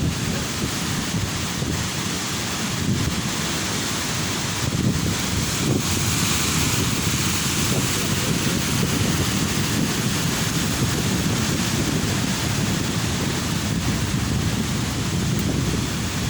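Ocean surf breaking and washing on a beach, a steady rush of water, with wind buffeting the microphone as a low rumble.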